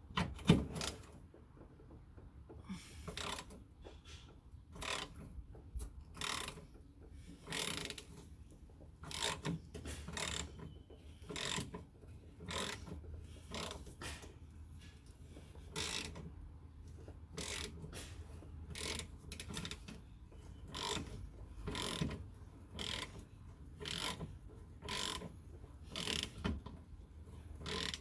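Ratchet wrench clicking in repeated short strokes, in small clusters about once a second, as a badly rusted bolt is worked loose.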